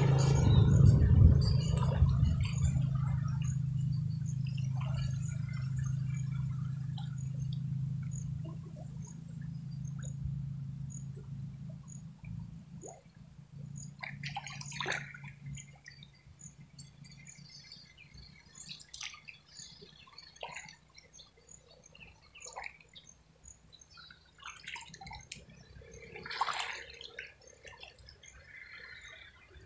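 Water sloshing, splashing and dripping as a man wades chest-deep in a canal and dips down to search the bottom by hand, in soft scattered splashes with one larger splash near the end. A low steady hum fades out over the first half.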